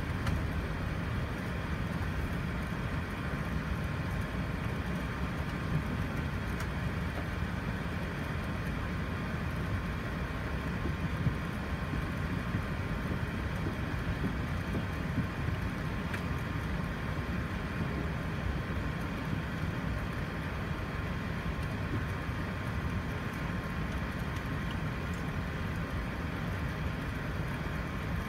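Steady cabin noise inside an Airbus A380 during pushback: a low rumble and hiss with a faint steady tone.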